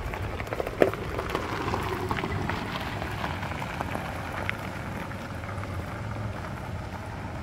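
Gravel crunching steadily under footsteps walking down a gravel driveway, with a golf cart driving away ahead on the same gravel.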